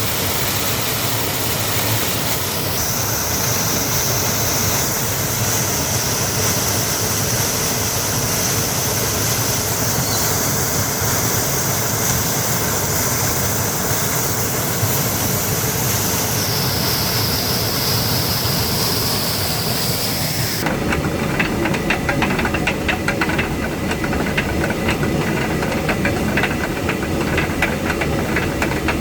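Water mill at work: rushing water with a steady high hiss for most of the stretch. About 21 s in the sound changes abruptly to a fast, continuous clatter of the mill's workings over the water.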